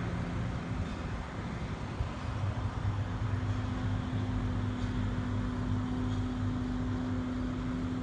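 Combine harvester running steadily in a soybean field, a low engine hum that grows a little louder in the second half.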